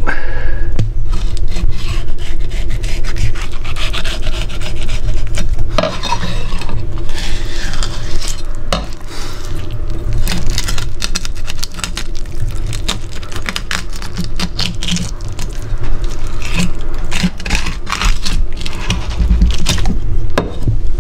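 Kitchen knife drawn along a chub mackerel's backbone against a cutting board, scraping and rasping over the bones in many short strokes as the fillet is cut away in one pass (daimyo-oroshi filleting).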